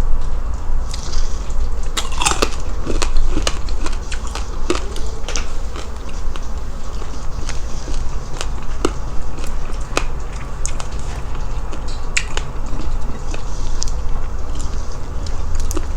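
Close-miked biting and chewing of crispy fried fatty food, with sharp crunches and crackles throughout, most dense about two to three seconds in, over a steady low hum.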